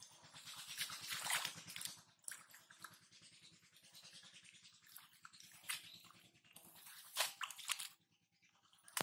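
Hands splashing and squelching in shallow muddy water, groping through mud and wet leaves, in a string of irregular wet bursts, the loudest about a second in and another about seven seconds in.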